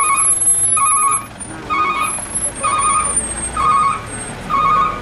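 Vehicle reversing alarm beeping about once a second, each beep a warbling electronic tone about half a second long, with vehicle engines running low underneath.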